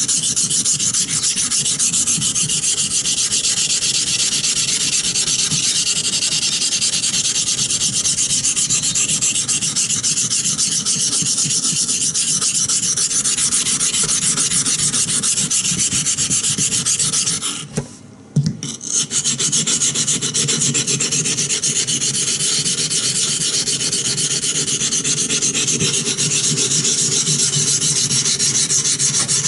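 Steel knife blade, a Bark River Bushcrafter, scraped back and forth in steady strokes on a coarse 120-grit waterstone, grinding the edge nearly flat. The strokes stop briefly a little past the middle, with a single click, then carry on.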